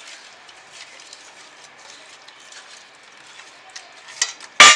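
Fish pieces being mixed by hand in a steel bowl, with faint scattered clicks and knocks against the metal. Near the end a single sharp metallic clang rings on.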